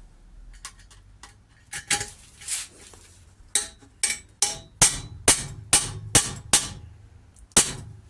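A hammer striking metal. There are a few scattered taps, then a run of about eight evenly spaced blows at roughly two a second, and one last blow near the end. It is punching a countersink dimple into the sheet steel for a screw, without drilling.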